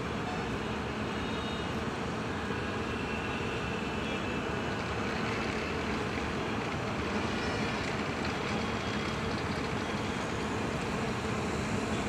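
Steady bus engine noise around a bus terminus, growing a little louder in the second half as a coach drives closer.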